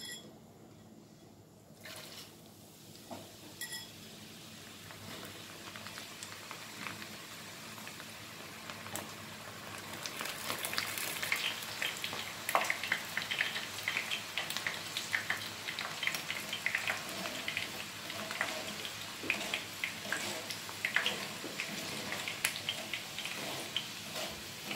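Yellow moong dal deep-frying in hot oil in a steel kadhai, sizzling and crackling with many small pops. The sizzle builds over the first several seconds as the fresh batch goes in, then stays loud through the second half while the oil bubbles hard around the wet lentils.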